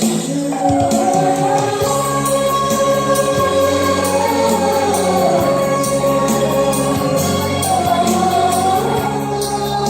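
Song with a sung melody over a steady beat and accompaniment.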